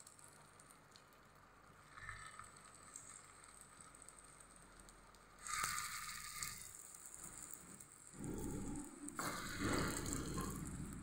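Masala-coated boiled eggs frying in hot mustard oil in a kadai, a soft crackling sizzle that grows louder as more eggs are dropped in over the second half.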